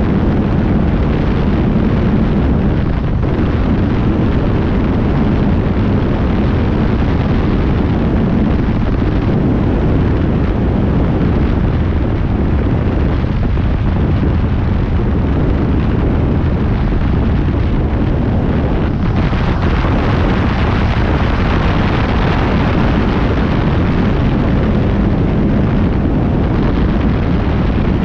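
Light high-wing propeller plane's engine and propeller running steadily in flight, with heavy wind rush over the wing-mounted microphone. The hiss grows brighter about two-thirds of the way through.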